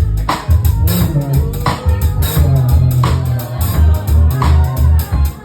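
Band music with a bass guitar and drum kit, the drums keeping a steady beat of about three hits every two seconds over a strong bass line.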